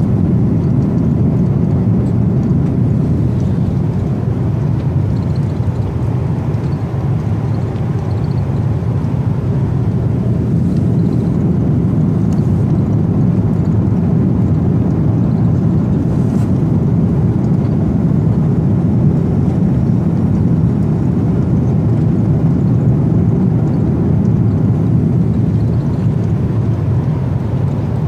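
Airliner cabin noise in flight: a steady, even low drone of the jet engines and the air rushing past the fuselage.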